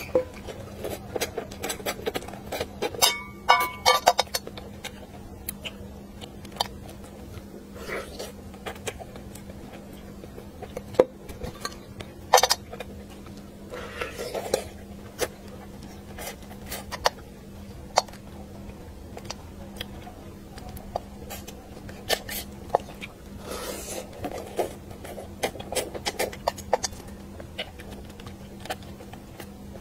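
Close-up eating of spicy braised fish: chewing and sucking on the fish head and flesh, with scattered sharp clicks of chopsticks and utensils against a metal bowl and plate. A steady low hum runs underneath.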